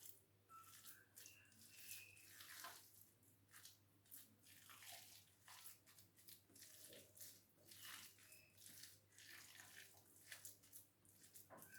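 Faint, irregular squelching and crackling of a moist oats and grated bottle gourd rotti dough being mixed and pressed together in a bowl.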